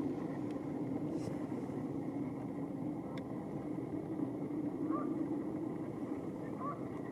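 Steady low rumble of vehicle traffic, with two faint short chirps about five and six and a half seconds in.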